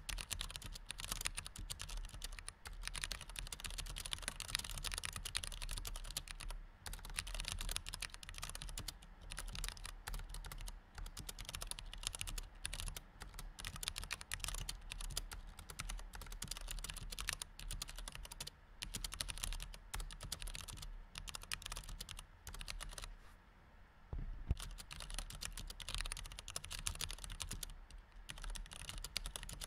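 Continuous typing on a low-profile computer keyboard with white chiclet keys: a dense, rapid stream of key clicks with short breaks now and then, the longest about three-quarters of the way through.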